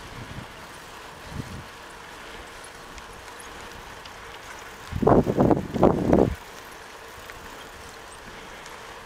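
Wind buffeting the microphone of a camera carried on a moving bicycle: a steady low rush, broken by a loud cluster of gusts about five seconds in that lasts just over a second.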